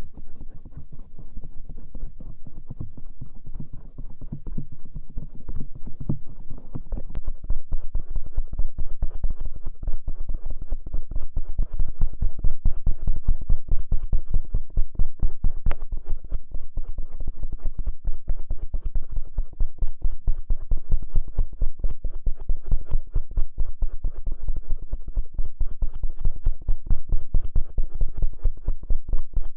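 Bamboo ear pick scraping and rubbing over the outer ear (auricle) in quick, closely repeated strokes, heard very close and mostly low and dull. The strokes grow louder and denser about seven seconds in.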